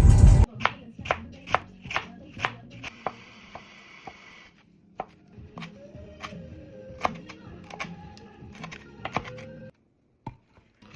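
Loud music cuts off about half a second in. Then a knife chops food on a cutting board in sharp, irregular strikes about two a second, stopping shortly before the end.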